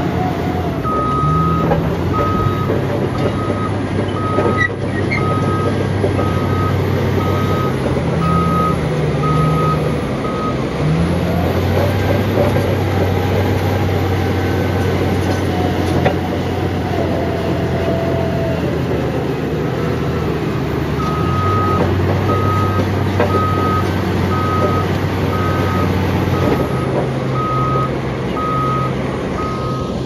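Caterpillar D11 bulldozer's diesel engine running with a steady drone that shifts in pitch under load midway. A reversing alarm beeps about once every 0.8 s for the first ten seconds and again over the last nine.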